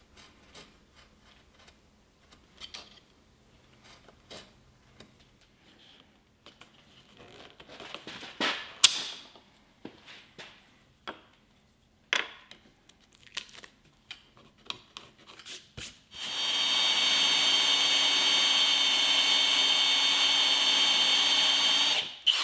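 Scattered clicks and knocks of handling tools and wood on a bench, then an electric power tool starts about 16 seconds in and runs steadily for about six seconds before cutting off suddenly.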